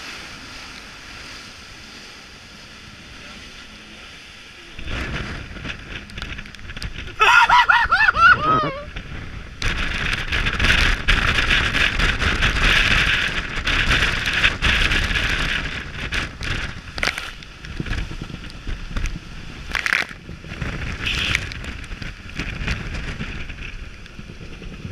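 Water rushing and churning past the hull of a Nautitech Open 40 sailing catamaran at about 17 knots, mixed with wind noise. The rush swells suddenly about five seconds in and is loudest in the middle, with a brief wavering whistle-like tone about seven seconds in and a few knocks near the end.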